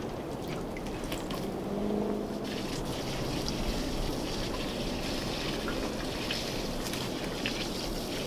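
Liquid pouring from a plastic watering can onto a straw-covered compost bed: a steady hissing patter that starts about two and a half seconds in.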